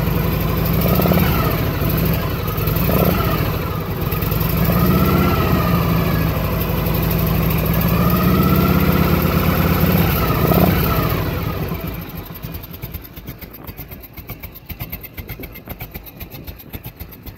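1982 Harley-Davidson FLT's 80-cubic-inch Shovelhead V-twin running shortly after a cold start, revved up and back down several times. About twelve seconds in its sound falls away sharply to a faint, uneven pattering.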